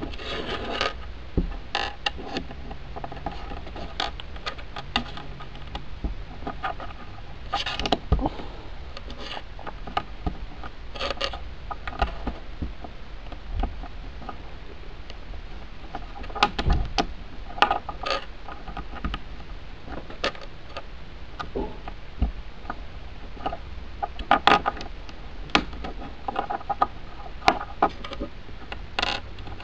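Small plastic LEGO bricks being pressed together and shifted on a hard tabletop: irregular sharp clicks and light rubbing, over a low steady hum.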